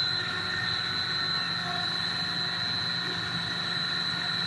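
Corn puff snack extruder production line running: a steady machine hum with a constant high-pitched whine over it.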